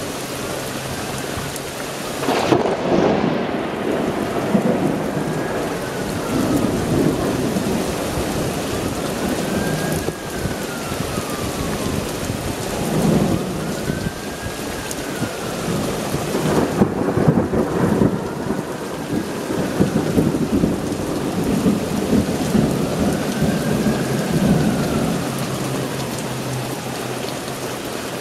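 Thunderstorm: steady heavy rain with thunder rumbling again and again, the loudest claps a couple of seconds in and around the middle. A faint tone that rises and falls about every four and a half seconds runs under it.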